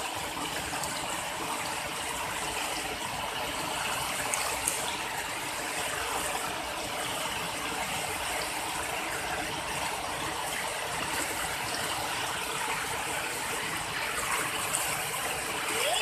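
Shallow rocky river rushing and splashing over boulders in a steady, unbroken rush of white water.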